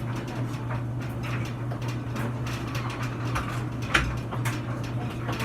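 Slime being squished and stretched by hand, making many small sticky clicks and pops, with one sharper snap about four seconds in, over a steady low machine hum.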